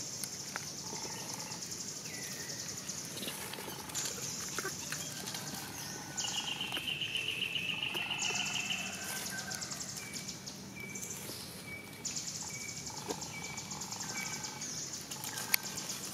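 Rural outdoor ambience: birds chirping and calling, over a high-pitched pulsing buzz that comes and goes in stretches of a few seconds. A rapid trill is loudest between about six and nine seconds in.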